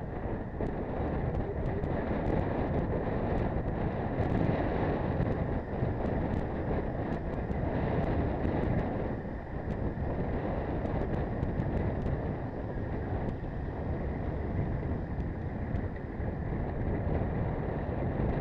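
Steady wind rumble buffeting the microphone of a camera on a road bike riding at speed in a group, with faint scattered clicks.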